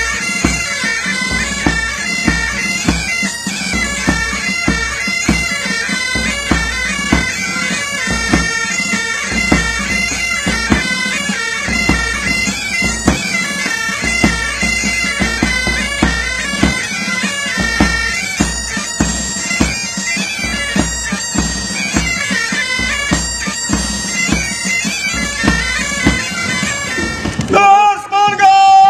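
Pipe band playing: bagpipes sounding a melody over their steady drone, with regular drumbeats beneath.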